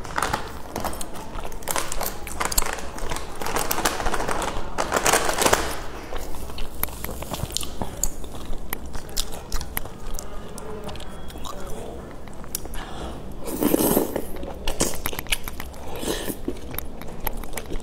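Close-up eating: chewing and slurping of wide, flat noodles coated in a thick spicy sauce, with many small wet mouth clicks. There is a louder slurp late on as a long noodle strip is sucked in.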